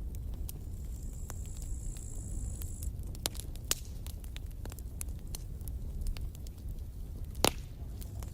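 Campfire burning, with scattered sharp crackles and snaps over a low rumble and one louder pop near the end.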